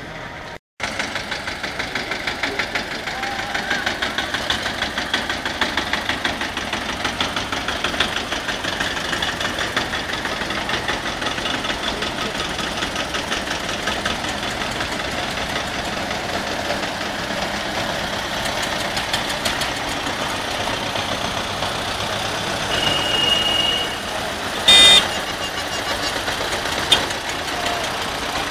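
Engines of old tractors running as they drive past one after another: a steady, rapid knocking putter. Near the end, a short, loud tone sounds over them.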